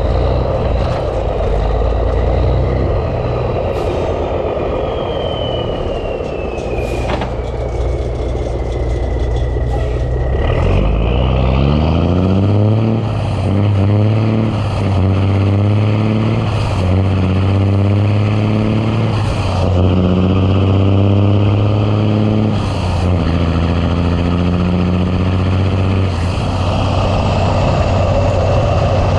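Big Cam Cummins inline-six turbo diesel in a 1986 Ford LT9000 truck. For about the first ten seconds it runs at a steady low note while a high whine falls in pitch. Then it pulls away, its pitch climbing and dropping back at each upshift through about six gears, with a few short hisses.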